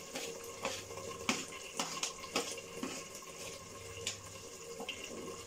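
Metal spoon scraping and tapping against a plastic plate and the pressure cooker's rim as chopped beans are pushed into the pot: a series of sharp taps, most of them in the first three seconds, over a steady low hiss.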